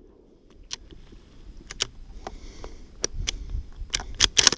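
Handling noise from a shotgun with a camera clamped to its barrel: scattered sharp clicks and knocks, growing busier and louder in the last second and a half.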